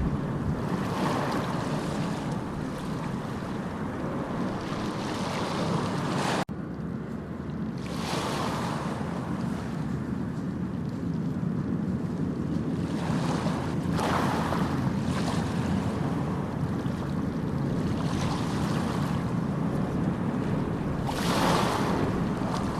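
Sea waves breaking and washing ashore, a steady rush with a wave swelling every six or seven seconds. About six and a half seconds in there is a sudden brief break, like a splice in the recording.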